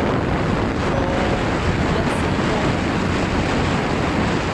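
Steady, loud wind noise buffeting the microphone, a dense rushing rumble like that of riding a moving vehicle.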